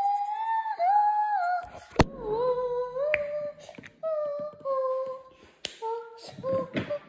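A person humming a tune, gliding between held notes with short breaks, with a sharp click about two seconds in.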